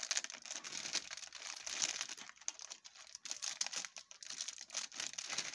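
Scissors cutting open a metallised plastic snack packet, the packet crinkling and crackling continuously as it is handled and cut.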